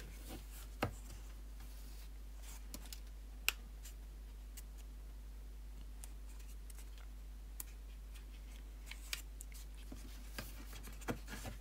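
Sparse light clicks and taps of a clear plastic display case and its foam insert being handled as a small model locomotive is worked out of them, the sharpest click about three and a half seconds in, over a faint steady hum.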